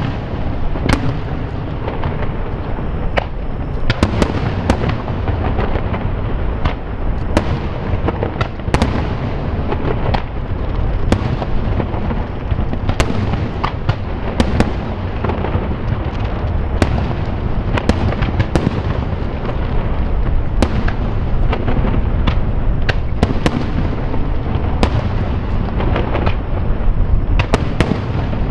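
Fireworks display: a continuous rumble of aerial shell bursts, with frequent sharp cracks and bangs at an irregular pace, often one or two a second.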